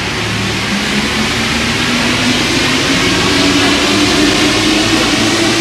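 Paris Metro train pulling out of the station behind platform screen doors, its motors whining with a pitch that rises steadily as it accelerates, over a rushing rumble that grows a little louder.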